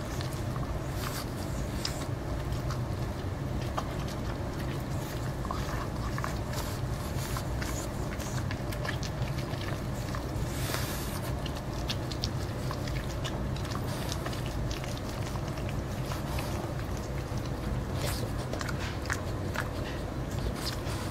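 A French Bulldog biting and chewing kernels off a hand-held corn on the cob: many short crunching bites and clicks, over a steady low hum.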